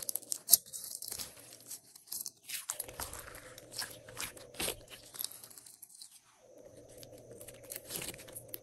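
Glossy slime being squeezed, stretched and folded by hand, giving irregular sticky clicks and crackles.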